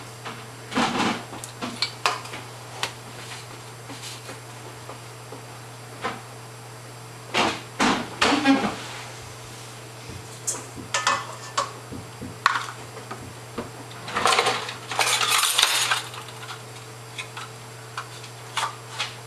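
Clinks, taps and scrapes of stainless steel kitchen canisters, their lids and a measuring cup as brown sugar is scooped out, with a longer rustling hiss about three-quarters of the way through.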